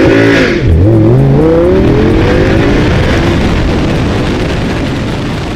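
Audi R8's V10 engine accelerating hard. The pitch climbs, drops sharply at a gear change a little under a second in, then climbs steadily again through the next gear as the sound slowly fades.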